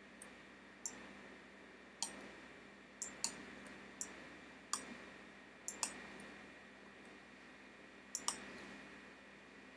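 Computer pointing-device button clicks: about a dozen sharp, brief clicks at irregular intervals, some as quick pairs, as the pointer drags a 3D model around on screen and picks windows.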